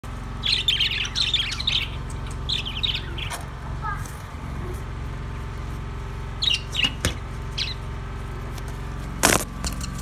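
A flock of budgerigars chirping in scattered bursts of quick, high twitters over a steady low hum. There are two sharp knocks, the louder one near the end.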